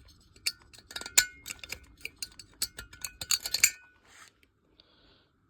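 Rapid sharp metallic clinks and taps as casting flash is picked and broken off a diesel heater's metal heat exchanger, for about three seconds before stopping.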